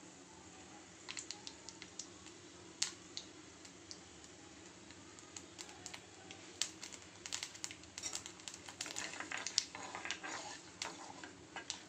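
Mustard seeds popping in hot oil in an iron kadai: a few sharp pops at first, then rapid, dense crackling in the second half as the seeds start to splutter. The oil is hot enough for tempering.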